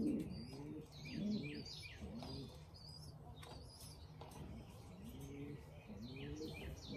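Domestic racing pigeons cooing in a loft: repeated low coos, each rising and falling, roughly one a second, with short high chirps mixed in.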